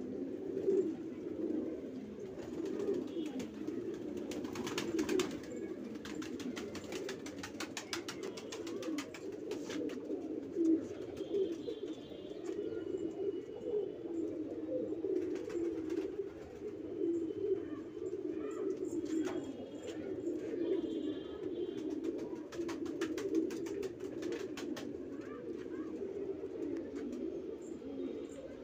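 Banarasi pigeons cooing steadily together in a low, unbroken chorus. Several bursts of rapid clicking come through it.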